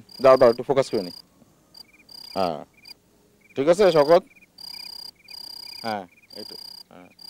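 Crickets chirping, a steady high trill that stops and starts, with short pulsed chirps. Several brief bursts of a human voice come over them and are louder.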